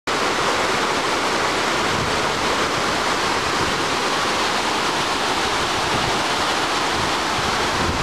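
Fountain waterfall: water pouring over stepped rock ledges in a steady, loud rush.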